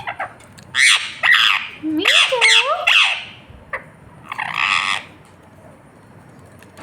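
Ringneck parrot squawking: three bouts of harsh calls with bending pitch in the first five seconds, then a pause.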